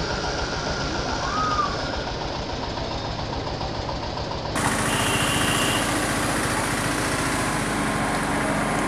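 Small engine running as a three-wheeled auto-rickshaw drives through floodwater. About halfway through, the sound changes abruptly to a different, steadier engine-like noise.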